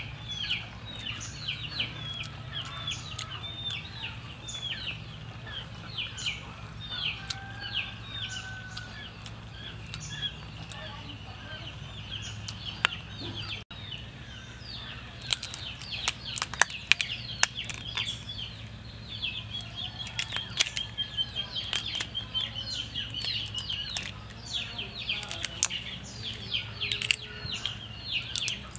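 Birds chirping in quick, repeated short calls throughout. In the second half there are sharp, loud clicks and crackles as cooked prawn shells are cracked and peeled by hand.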